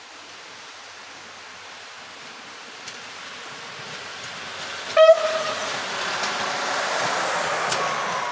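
Small yellow self-propelled rail maintenance vehicle approaching and passing on the track, its running noise growing steadily louder. About five seconds in it gives one short horn blast, and its rumble stays loud while it passes close by.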